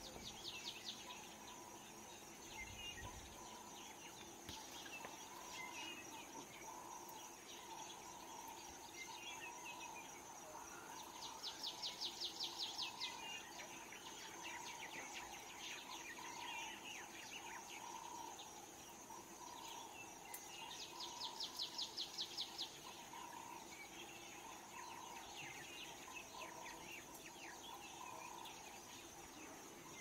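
Bush ambience: a steady high-pitched insect drone with scattered bird chirps. Two bouts of a rapid trill, each about two seconds long, come near the middle and about two-thirds of the way through and are the loudest sounds.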